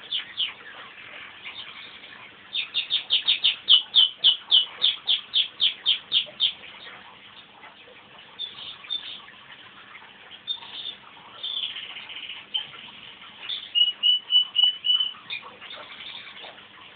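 Crossbred canary singing: phrases of rapid, high repeated notes, a loud series of about four notes a second for several seconds, then softer, broken phrases and another loud repeated run near the end.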